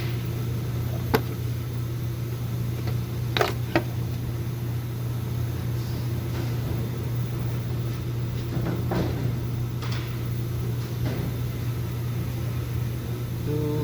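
Car engine idling with a steady low hum, with a few sharp clicks and knocks about one, three and a half, and nine seconds in.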